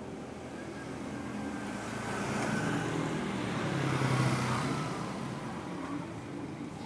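A motor vehicle passing on the road: its engine grows louder to a peak about four seconds in, then fades away.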